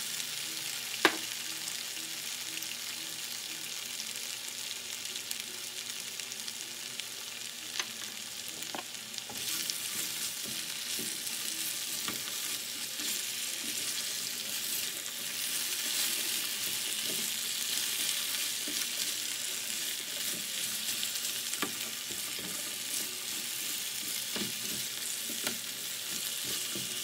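Julienned raw potatoes sizzling in hot oil in a frying pan while a spatula stirs them, knocking and scraping against the pan. There is one sharp knock about a second in, and the sizzle grows louder about a third of the way through.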